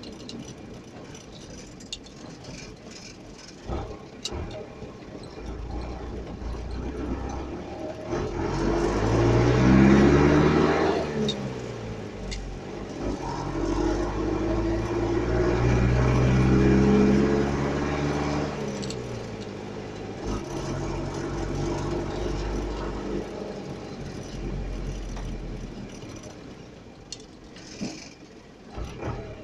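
Motor vehicle engine pulling under power over a steady low rumble, its pitch climbing and falling twice, about eight and about thirteen seconds in.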